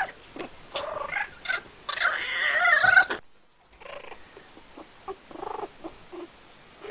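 Kitten yowling and growling while play-fighting with a puppy, rough and rising to its loudest just before it cuts off abruptly about three seconds in. A few shorter, quieter growls follow.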